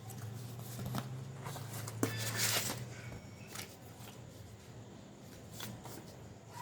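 Hands handling a smartphone and a screen-guard pack: a few light clicks and a scraping rustle, loudest about two seconds in, over a faint low hum that stops about three seconds in.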